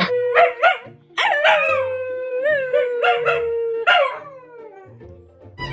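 Dog howling: a few short yelps, then one long howl held at one pitch with small wavers, and a shorter falling howl after it.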